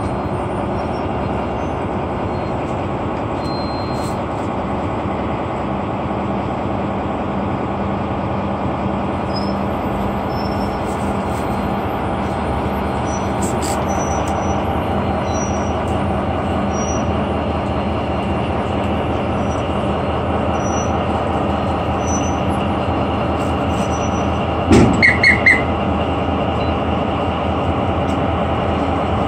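PESA Gama SU160 diesel locomotive idling while standing, a steady engine hum. About 25 seconds in, four quick high-pitched pulses sound over it.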